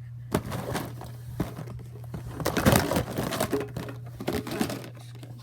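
Plastic fidget toys being handled and put away: crinkling and clicking of plastic, busiest about two and a half to three seconds in, over a steady low hum.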